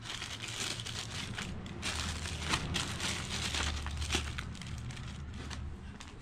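Clear plastic zip-lock bag and plastic sheeting crinkling and rustling as a handful of steel flywheel bolts is handled, with many small clicks.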